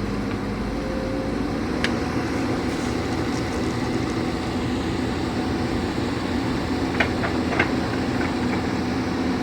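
Heavy machinery engine running steadily, with a few short sharp clicks about two seconds in and twice near seven seconds.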